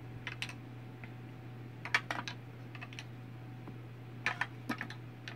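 Small plastic cream-blush pots clicking and tapping against each other as they are handled, in three short clusters of light clicks over a low steady hum.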